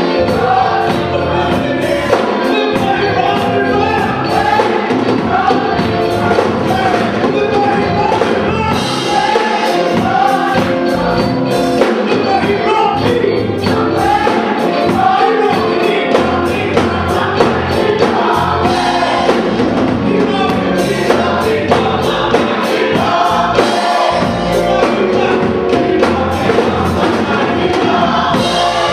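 Gospel choir singing with a live band, drums keeping a steady beat.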